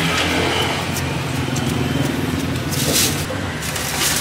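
Street traffic: a motor vehicle's engine running close by with a steady low hum, and a brief rasping sound about three seconds in.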